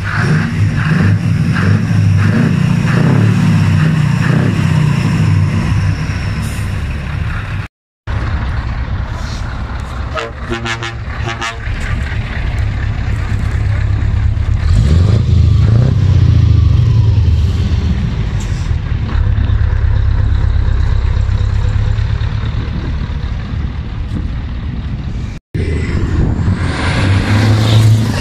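Scania V8 diesel truck engines heard close at their exhaust pipes, running with a deep rumble across several short clips, revving up about halfway through. Near the end a truck pulls away, with a whine that rises and then falls.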